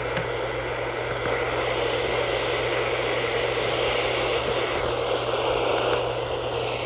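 Radio static: a steady hiss from a radio receiver picking up a noisy signal, with a low hum underneath and a few faint clicks in the first second or so.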